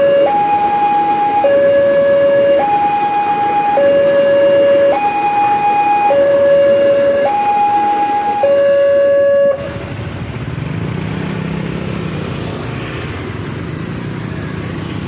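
Railway level-crossing warning alarm sounding its electronic two-tone signal, alternating between a high and a low tone about once a second to warn of an approaching train. It cuts off suddenly about two-thirds of the way through, leaving a quieter low rumble.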